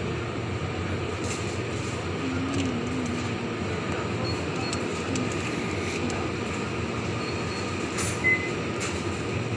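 Steady low hum and hiss of an open refrigerated display case's fans, with a few faint ticks and a short high beep about eight seconds in.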